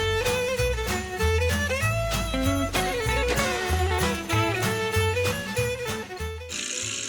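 Upbeat Christmas background music with a steady beat, a bass line and a melody. About six and a half seconds in it gives way to a steady hiss.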